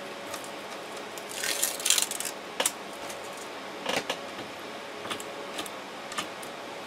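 Leftover ABS brim being scraped off a 3D printer's bed: a short rasping scrape about one and a half to two and a half seconds in, with scattered sharp clicks and ticks. A faint steady hum runs underneath.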